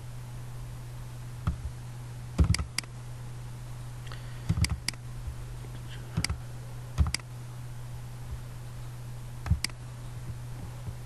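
Computer mouse clicking in short single clicks and quick pairs, spread irregularly over several seconds, over a steady low hum.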